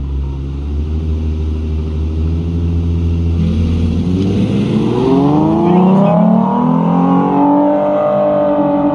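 A Ford Mustang and a second car idling side by side at the start line of a drag race. About three and a half seconds in, both launch hard, and the engine note climbs steeply as they accelerate away.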